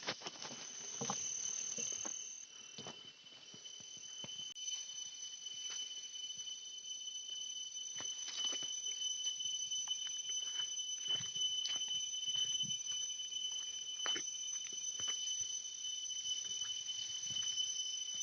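Insects, crickets or similar, keeping up a steady, high-pitched chorus, with scattered faint clicks and knocks from close handling or movement.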